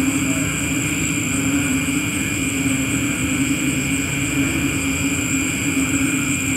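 A steady, unchanging mechanical drone: a constant hum with a thin high whine above it.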